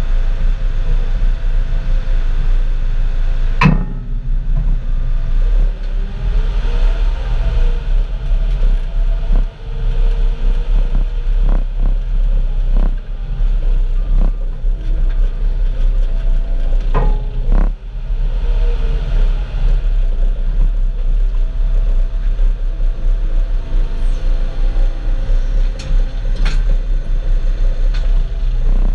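Farm loader's engine running with a steady low rumble, its note rising and falling briefly a couple of times, with a few sharp knocks and clanks, the loudest about four seconds in.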